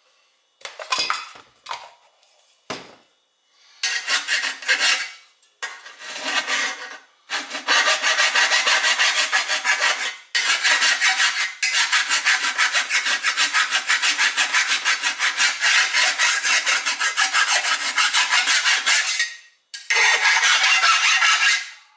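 Hand file rasping on a rusty steel car control arm, scraping off surface rust. A few short strokes at first, then quick, steady back-and-forth strokes about three a second, with a brief pause around ten seconds in.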